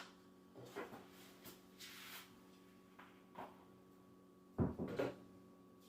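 Short clacks and rustles of bike parts and packaging being handled during an e-bike unboxing, with a cluster of louder knocks near the end, over a low steady hum.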